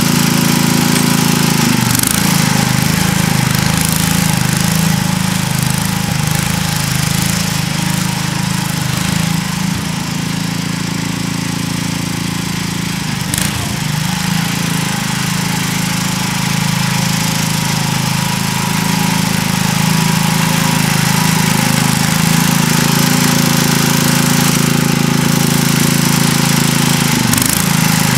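Sears ST 16 garden tractor's engine running steadily under load while plowing garden soil. It is a little fainter in the middle as the tractor moves off across the plot, then louder again as it comes back.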